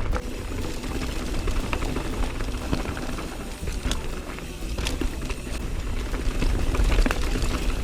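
Mountain bike riding down a chunky rocky trail: a constant low rumble of wind on the microphone, with tyres rolling over rock and scattered clicks and rattles from the bike.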